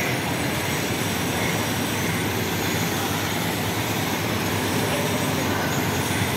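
A steady, unchanging mechanical din: a low engine-like hum under a constant rushing noise, with no distinct knocks or passes.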